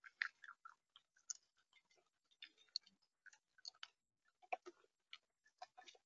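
Irregular sharp taps and crunching clicks, several a second, of an animal eating seed on a bird feeder right by the microphone.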